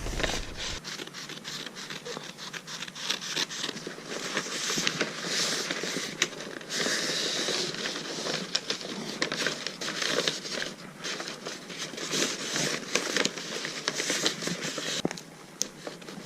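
Thick, textured wrapping paper rustling and crinkling as it is handled and folded around a present, with many irregular crackles.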